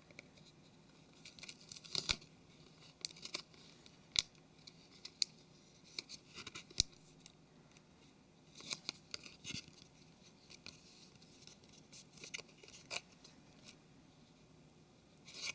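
Faint handling noise of fingers pressing a flex cable and its adhesive pad onto a plastic phone case and pushing its pins through: soft scratches and irregular sharp clicks, with a cluster a little past halfway.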